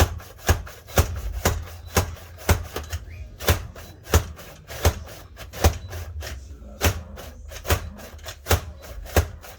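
Kleva safety slicer dicing an onion: a steady run of sharp plastic clacks, each with a dull thud, about one every half second to three-quarters of a second as the slicer is worked stroke after stroke.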